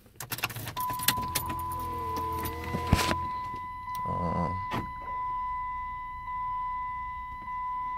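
Ignition key turned to the on position in a 2007 Chrysler 300C: a few key clicks, then a steady high electronic warning tone that holds for about seven seconds. A low hum runs under it for the first four seconds or so as the car's electrics power up.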